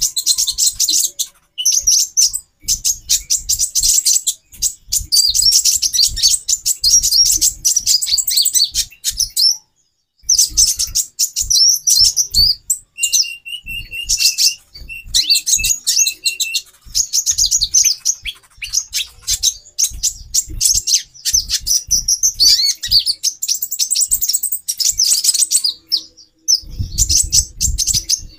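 Several female kolibri ninja (konin) sunbirds chirping in a rapid, high, busy twitter, breaking off briefly near ten seconds, with a steady held note mixed in around the middle. These are female calls used as a lure to raise a male's breeding urge. Soft low thumps come in near the end.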